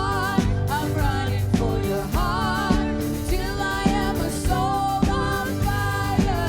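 Contemporary worship song played by a live band: a singer over a steady drum beat and bass.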